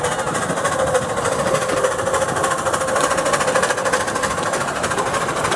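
Miniature 7¼-inch gauge steam locomotive running past close by: a rapid mechanical chatter from its exhaust and its wheels on the track, loudest about three to four seconds in, with a steady whine underneath.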